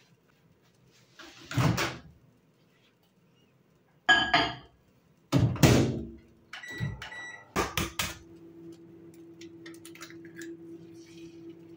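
Kitchen handling sounds: a door or cupboard opened and shut, crockery clinking with a ringing note, a knock and a few sharp clicks. About eight seconds in, an appliance starts a steady low hum that keeps going.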